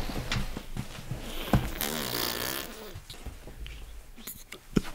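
A man's breathy, wordless vocal sounds close to the microphone, with a few sharp clicks.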